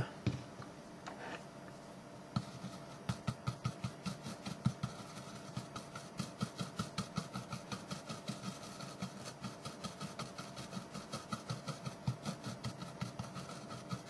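Stiff brush scrubbing flux remover over freshly soldered micro-switch joints on a circuit board, in rapid, even back-and-forth strokes about four a second, starting a couple of seconds in. It is the clean-up of flux residue after the switch has been soldered in.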